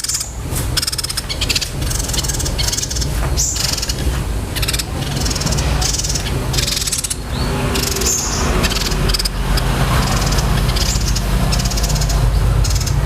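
A small songbird giving fierce, fast rolling trills in repeated short bursts, like fighting sparrows, over a steady low hum.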